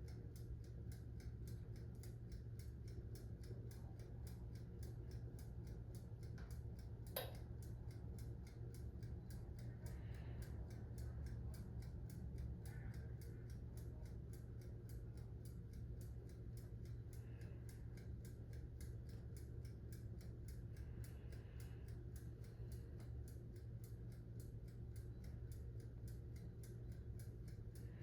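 Toaster oven's mechanical dial timer ticking evenly, about four to five ticks a second, over a low steady hum. One sharper click comes about seven seconds in.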